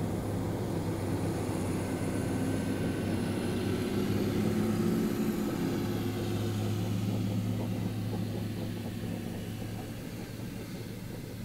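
Archer Midnight eVTOL aircraft on the taxiway, its electric motors and propellers giving a steady hum with a faint high whine that drifts in pitch. The sound eases off over the last few seconds.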